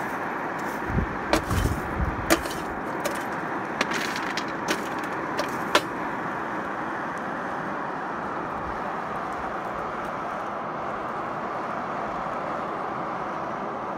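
Small Dayton electric blower running steadily, pushed hard to blow air through the coal in the forge's fire pot to get the fire going. A scatter of sharp clicks and knocks from the coal and a steel rod stirring it comes in the first six seconds.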